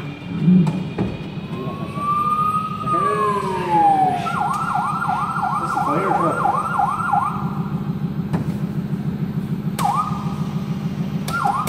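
Kiddie-ride toy fire engine playing an electronic siren effect: one long falling wail, then a rapid yelping siren for about three seconds, and short yelps again near the end, over a steady low pulsing hum.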